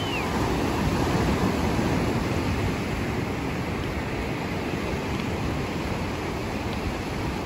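Mediterranean surf breaking and washing up a sandy beach: a steady, unbroken rush of waves.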